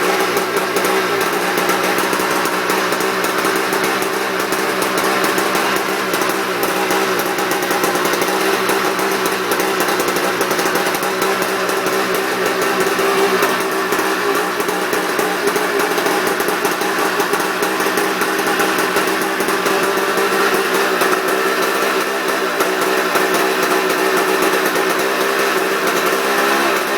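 Haily SX200's engine running at a steady speed, with an even, unchanging hum and no revving.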